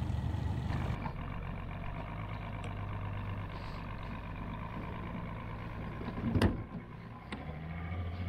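Outboard motor idling with a steady low hum, the boat moving slowly on calm water. A single sharp thump about six and a half seconds in is the loudest sound.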